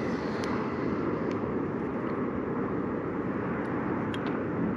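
Steady wind rumbling against the microphone, with a few faint small clicks.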